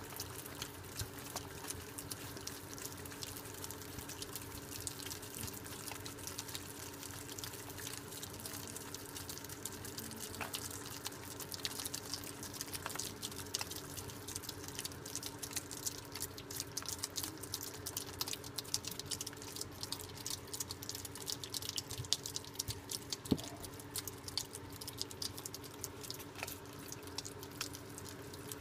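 Several young Virginia opossums chewing banana with open mouths: a dense run of wet smacking and clicking, over a steady low hum.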